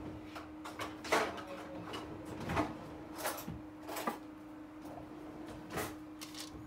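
Kitchen handling noises: a series of separate knocks and clatters of utensils and containers being picked up and set down, over a faint steady hum.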